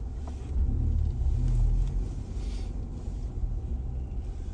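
Car engine and road rumble heard from inside the cabin while driving slowly. It swells louder for about a second and a half, starting about half a second in, then settles back to a steady low rumble.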